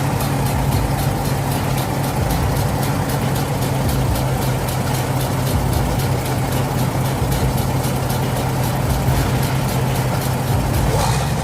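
Heavy truck's diesel engine running at a steady, unchanging pitch.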